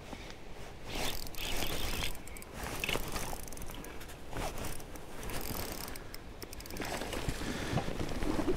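Spinning reel being cranked against a hooked fish, its gears and mechanism clicking and whirring in uneven spells.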